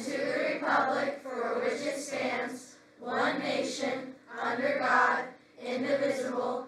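A classroom of schoolchildren reciting the Pledge of Allegiance in unison, phrase by phrase, with short pauses between the phrases.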